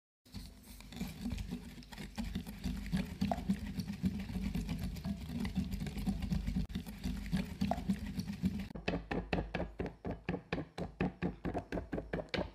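Wire balloon whisk beating a dalgona coffee mixture by hand in a ceramic bowl: rapid clinking and sloshing strokes as the liquid froths up. For the last few seconds the strokes come in a more even, quick rhythm.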